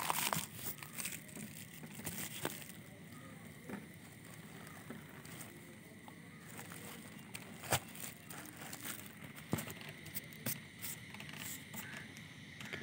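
Faint, scattered crinkling and rustling of shredded paper gift filler and a plastic-wrapped gift being handled. The loudest cluster comes right at the start, followed by a few sharp single crackles.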